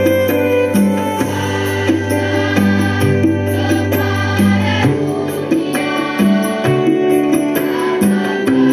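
Large massed choir of students singing an Indonesian patriotic song with musical accompaniment, the notes held and moving together. A steady low note underneath drops out about five seconds in.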